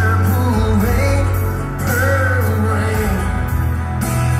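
Live rock ballad: a man singing long, wavering notes over acoustic guitar, bass and a steady beat.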